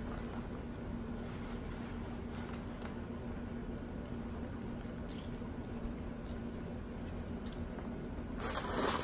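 Quiet room tone with a steady low hum and a few faint ticks; near the end, a short burst of rustling and handling noise as food is picked up.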